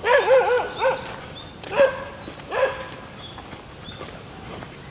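A dog barking: a quick run of short yapping barks at the start, then three more single barks spaced out over the next few seconds.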